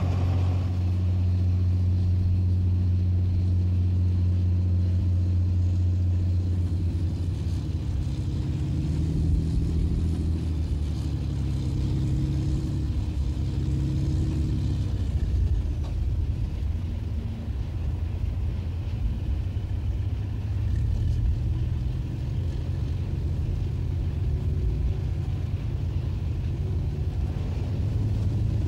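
Challenger armoured repair and recovery vehicle's CV12 V12 diesel engine running with a steady low drone during winching. Its note shifts up a little in the middle, then settles into a rougher, lower rumble.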